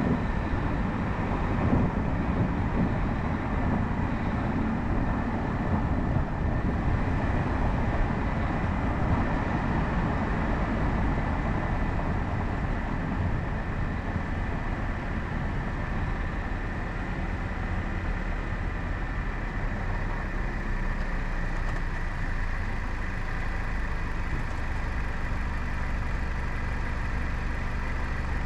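A car driving over brick pavement, with tyre noise and engine running. About halfway through it slows and comes to a stop, leaving a steadier engine idle.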